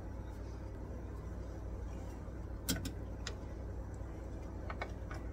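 Quiet kitchen room tone: a steady low hum with a few light clicks, as of a utensil being set down on the counter.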